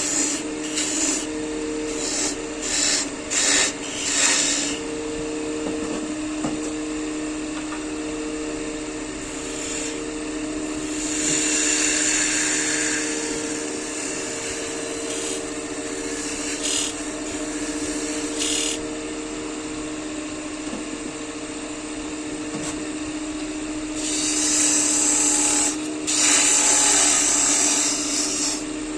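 Wood lathe running with a steady hum while a tool is worked against the spinning wood of the blank in stretches: short scrapes in the first few seconds, a longer hiss about halfway, and a louder, longer one near the end.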